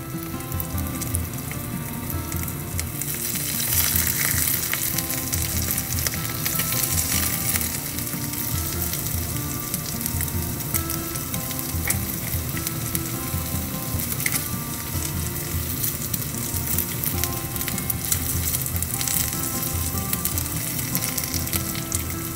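Fried eggs and maitake mushrooms sizzling and crackling in oil in a small frying pan, growing louder a few seconds in. Now and then a wooden spatula prods the eggs.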